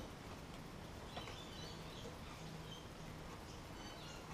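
Quiet workshop room tone with a faint low hum and a few faint scattered clicks and short high chirps.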